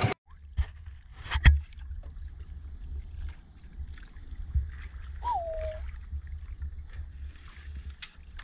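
Water lapping and gurgling against a small wooden outrigger boat at rest, with a few sharp knocks on the boat, the loudest about one and a half seconds in. A short falling note comes about five seconds in.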